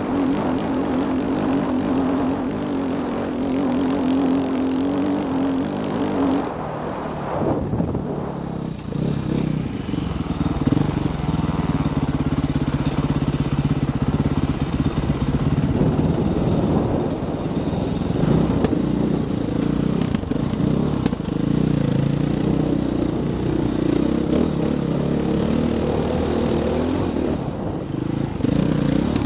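Dirt bike engine heard from on the bike. It holds steady high revs for the first six seconds or so, then falls off as the throttle closes and the bike slows. From about nine seconds in it runs at lower, uneven revs with small rises and falls.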